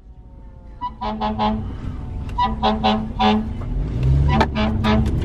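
A vehicle horn honking in quick runs of three or four short blasts, with an engine rumble swelling about four seconds in.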